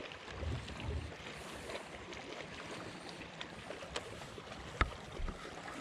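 Light water lapping against a small boat's hull, with a few faint clicks.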